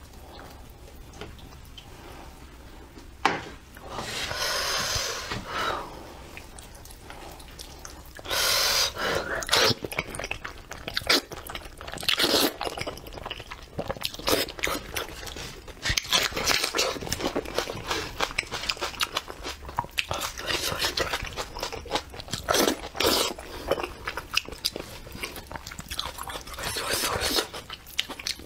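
Close-up eating sounds of a braised sheep's head in chili sauce being pulled apart by hand and chewed: wet tearing, smacking chews and crunches in quick irregular bursts, busier from about eight seconds in.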